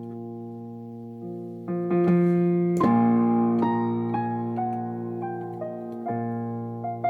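Keyboard music: held chords, with new chords struck around two and three seconds in, then a slow line of single notes over the sustained chord.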